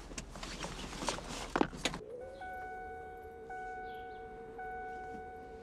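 Rustling and a few sharp knocks of someone moving in a car seat, then, from about two seconds in, soft music: a held, slightly wavering low note under a bell-like tone struck three times, about a second apart.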